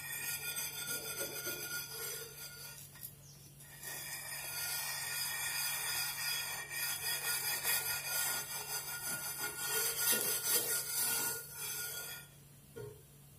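Steel wool scrubber scraping back and forth over an old iron dosa tawa through a foaming paste of baking soda and lemon juice, scouring off burnt-on black residue. The scraping eases off about three seconds in, picks up again, and stops near the end.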